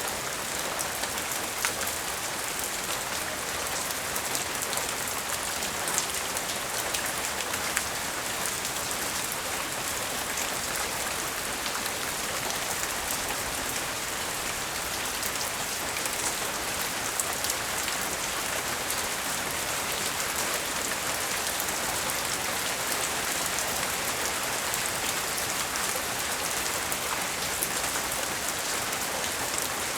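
Steady light rain falling, with a dense patter of individual drops hitting surfaces.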